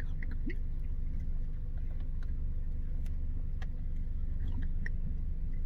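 Car engine idling with a steady low hum, with a few faint scattered clicks over it.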